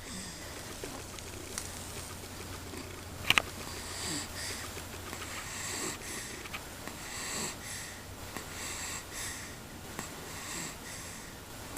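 Rhythmic snoring in sleep: wheezy, hissy breaths about every second and a half, from a sleeper getting over a cold. A single sharp click about three seconds in.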